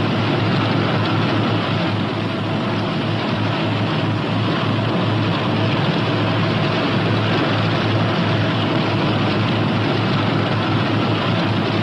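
Northrop P-61 Black Widow's twin radial engines running steadily as the aircraft taxis, an even, unchanging engine noise.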